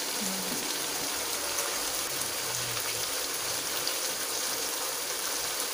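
Blended spice paste with lemongrass, galangal and leaves frying in oil in a wok, sizzling steadily with faint crackles.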